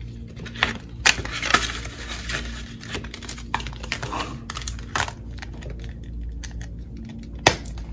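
Paper banknotes and a vinyl cash envelope being handled, with rustling and crinkling of bills and plastic. Several sharp clicks come from the ring binder and its plastic pockets as it is closed, the loudest near the end.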